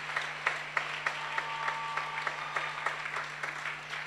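Congregation applauding with many hands, the clapping thinning out toward the end, over a steady low hum.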